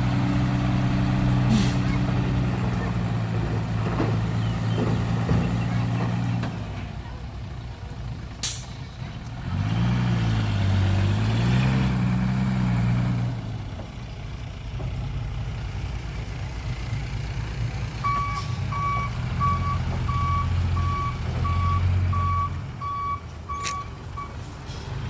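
Diesel dump truck engine running, revving up and back down in the middle, with a brief sharp hiss before the revving. Near the end a reversing beeper sounds about twice a second as the truck backs up.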